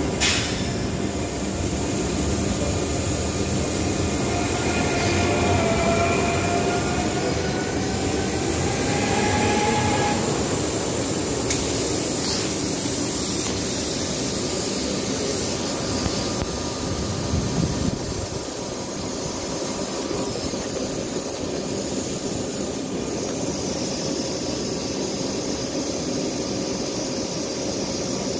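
Z 24500 double-deck electric multiple unit moving off, its traction motors giving a whine that rises slowly in pitch for about ten seconds over the rumble of the wheels on the rails. After that, steady train rumble.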